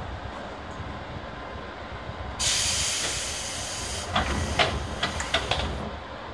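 Stationary electric commuter train venting compressed air: a sudden loud hiss about two and a half seconds in that fades over a second or so, over a steady low rumble. It is followed by a quick run of clicks and clunks.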